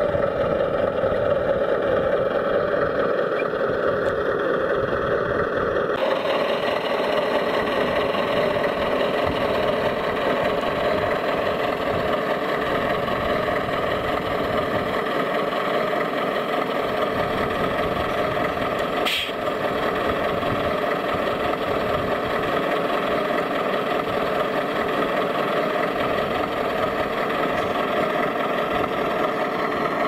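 Radio-controlled scale trucks running with a steady engine drone. The sound changes abruptly about six seconds in, and a single sharp click comes a little past the middle.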